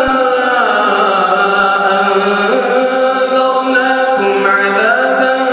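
A man's voice reciting the Quran in a melodic chant, holding long notes that slide between pitches without a break.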